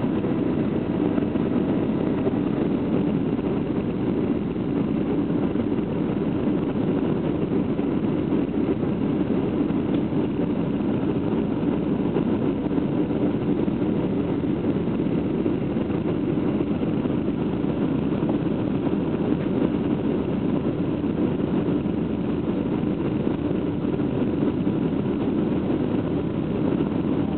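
Steady cabin noise of a jet airliner on descent: a low, even drone of engines and rushing air, heard from inside the cabin, with a few faint steady tones over it.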